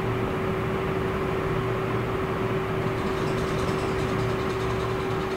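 A steady machine hum with one constant mid-pitched tone over a low drone, level throughout. Under it, faint rustling of the kite's paper sheet as it is cut with scissors and the cut strip is lifted away, a little more noticeable in the second half.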